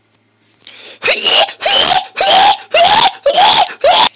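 A person screaming in a run of about six short, loud, strained bursts, each rising then falling in pitch, starting about a second in.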